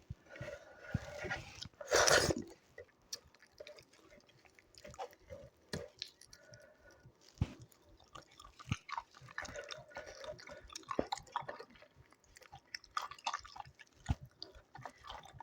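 Close-miked chewing and wet mouth sounds of someone eating doi chicken and rice: many short, irregular clicks and smacks, with one louder crunch about two seconds in.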